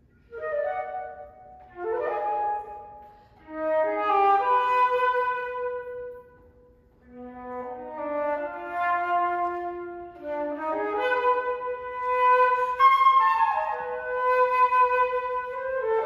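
Solo concert flute playing a melody of held notes in short phrases, coming in about half a second in, with brief pauses about three and six and a half seconds in.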